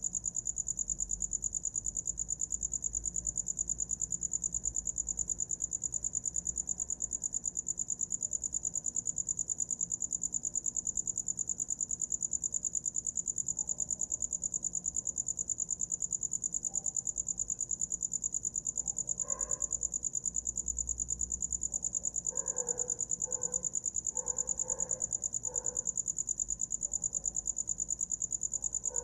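Cricket chirping continuously in a fast, even, high-pitched trill. From about twenty seconds in, a fainter, lower call repeats several times beneath it.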